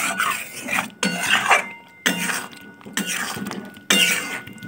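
A spoon stirring whole potatoes in thick curry in a metal pan: a scraping knock about once a second, the pan ringing briefly after each stroke.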